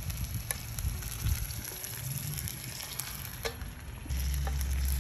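Chicken pieces sizzling in hot oil in a cast iron skillet, a steady hiss with a few light clicks. About four seconds in, a steady low rumble joins it.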